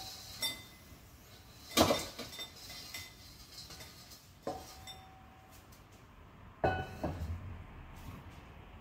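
Metal spatula and wok knocking and scraping as fried dried anchovies are tipped into a ceramic bowl: four sharp clinks and clanks, some ringing briefly, the loudest about two seconds in. The last knock, about six and a half seconds in, comes as the wok goes back onto the gas stove.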